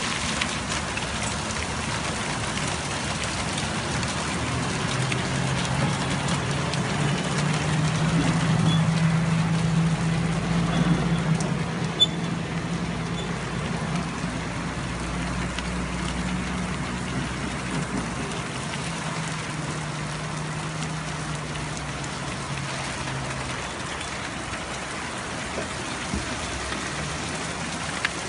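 Steady heavy rain falling on wet pavement and standing water. A low engine hum from a nearby vehicle comes in about five seconds in, grows loudest a few seconds later, and fades out a little past the two-thirds mark.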